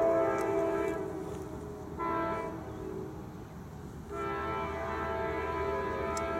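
Norfolk Southern diesel locomotive horn sounding a chord on an approaching intermodal train: a long blast, a short one about two seconds in, then another long blast from about four seconds in. The pattern is typical of the signal for a grade crossing.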